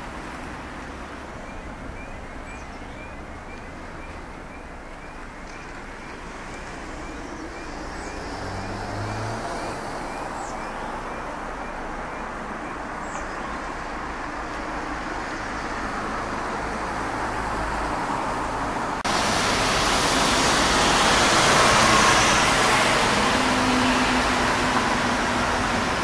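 Steady background road-traffic noise, with a run of faint high chirps, about two a second, over the first several seconds. About three quarters of the way through, the noise abruptly gets louder and hissier.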